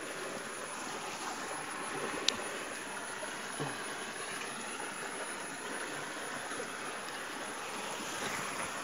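Steady rush of running water from a monsoon-fed stream, with one sharp click about two seconds in.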